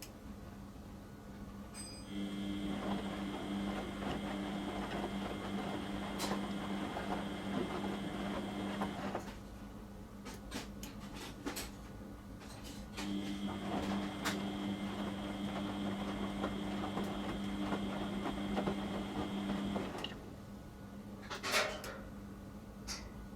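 Beko washing machine on its wash cycle: the drum motor hums steadily while turning the drum for about seven seconds, stops for a few seconds, then turns again, starting once more near the end. A few clicks and knocks fall in the pauses.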